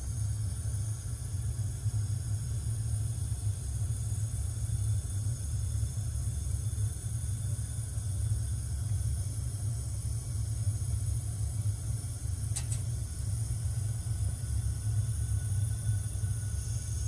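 Steady low rumble with a faint high hiss, and a single short click about twelve and a half seconds in.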